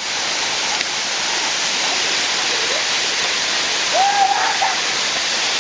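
Steady rushing of a waterfall, a thin cascade falling down a rock face. A short call rises and then holds about four seconds in.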